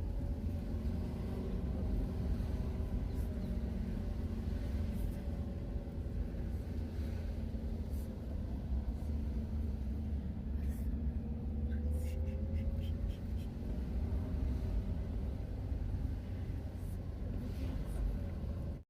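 Vehicle engine running on the move, its pitch drifting slowly up and down over a steady low rumble, with a few scattered clicks and knocks.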